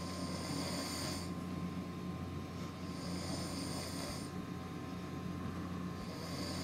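A sleeping man snoring in slow, regular breaths, one about every three seconds.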